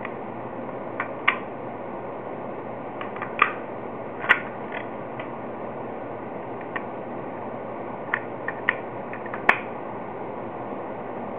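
Scattered sharp clicks and taps from handling, about a dozen of them at irregular intervals, the loudest near the end, over a steady hiss.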